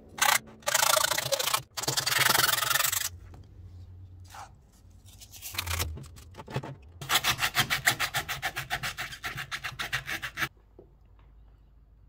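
Hardened foam being cut and scraped flat: two long rasping scrapes in the first three seconds, then a run of quick, even back-and-forth strokes, about eight a second, lasting some three and a half seconds.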